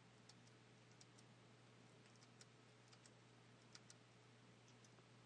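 Faint computer keyboard typing: about a dozen light, irregularly spaced key clicks as the key left of Enter and letter keys are pressed in turn.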